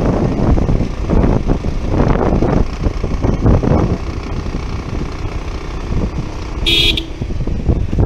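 Bajaj Pulsar 150 motorcycle on the move, with uneven, surging wind and road noise over the microphone. A horn beeps once, briefly, near the end.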